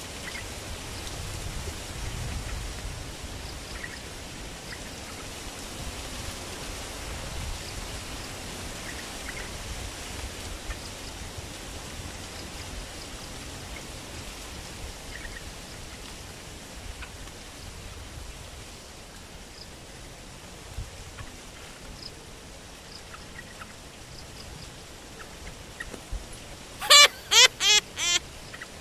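Streak-eared bulbuls (trao trảo) in and on a bamboo trap cage giving faint scattered chirps over steady outdoor background noise; near the end a bird close by gives four loud, harsh calls in quick succession.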